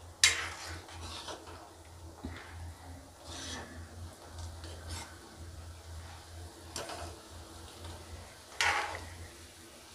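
Metal ladle stirring sugar syrup in a metal kadai, scraping across the pan in a few separate strokes, the loudest just after the start and near the end, over a steady low hum.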